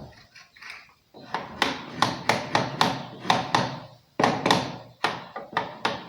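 A quick run of sharp knocks, about three a second, starting about a second in: a wall switch being tapped into place.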